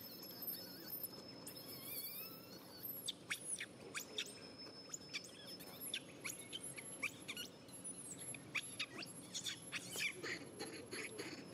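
Newborn monkey crying: thin, high-pitched squeaks and squeals in quick runs, many in a row from about three seconds in.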